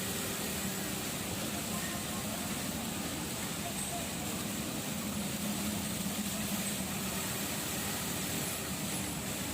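A steady mechanical hum under an even hiss, unchanging throughout.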